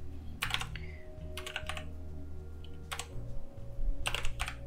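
Computer keyboard keys tapped in short, irregular bursts of typing, a few keystrokes at a time.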